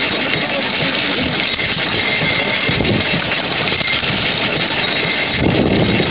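Several antique gasoline engines running together, a dense, uneven clatter of firing beats. The low end grows louder about five seconds in.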